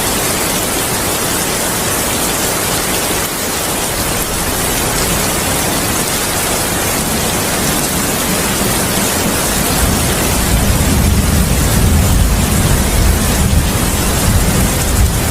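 Heavy rain falling as a steady, dense hiss. About two-thirds of the way through, a low rolling rumble of thunder builds underneath and carries on to the end.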